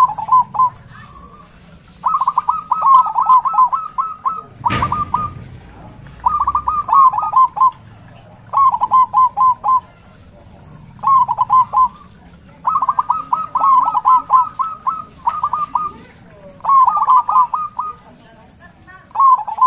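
Zebra dove singing: bursts of rapid staccato cooing notes, repeated every second or two with short pauses between them. A single sharp click about five seconds in.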